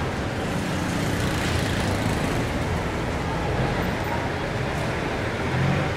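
Steady city road traffic on wet streets in the rain: a low drone of vehicle engines under a constant hiss of rain and tyres, swelling slightly near the end as a vehicle goes by.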